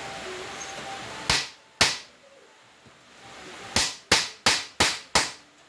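Seven sharp hammer blows on metal: two about half a second apart, then five in quick succession about three a second. They are blows to free a seized, rusted spark plug from a cylinder head.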